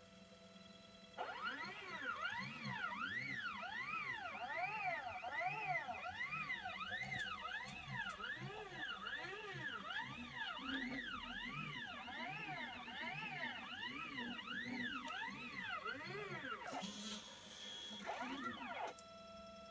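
Stepper motors of a mini CNC machine whining as the axes move, the pitch sweeping up and down over and over, about twice a second, as each move speeds up and slows down. The whine starts about a second in, turns hissier near the end and stops shortly before the end.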